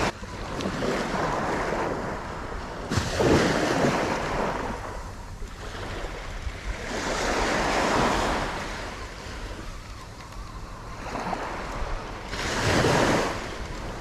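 Small waves breaking and washing up a sandy beach, the rush swelling three times, about three, eight and thirteen seconds in, loudest the first time, with wind on the microphone.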